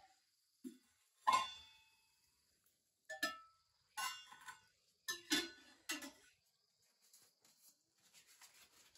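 Several sharp metallic clinks at irregular intervals, each ringing briefly; the loudest comes about a second in.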